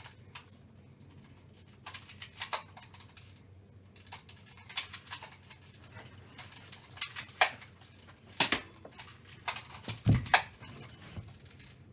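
Foam darts being loaded into a Nerf blaster and the blaster handled and primed: a string of plastic clicks and rattles, several very short high squeaks, and a heavier thump about ten seconds in.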